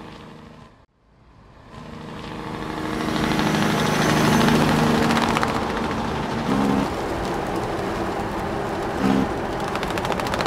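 Tractor engine running as a tractor towing a planter comes along a road. It grows louder over the first few seconds as it approaches, then runs steadily.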